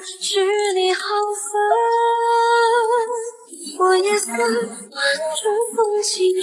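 A high female voice singing a slow, held melody over soft music, the notes sustained and gliding.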